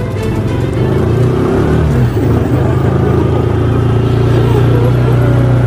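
Motorcycle engine running at low speed as the bike rides up, a steady low drone.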